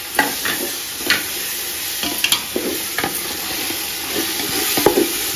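Freshly added chopped tomatoes sizzling in hot oil and masala paste in a large metal pot, stirred with a wooden spoon that scrapes and knocks against the pot every second or so.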